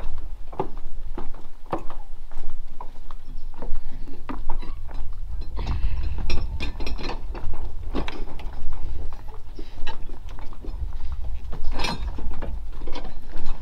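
Footsteps on the plank walkway of a wooden boat dock: irregular hollow knocks and clunks of the boards underfoot, one or two a second, over a low rumble.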